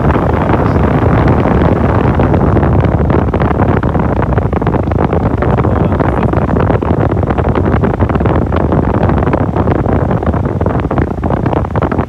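Westinghouse Mobilaire 5000 air conditioner's blower fan running, its airflow rushing and buffeting the microphone held close to the blower wheel in a loud, steady whoosh.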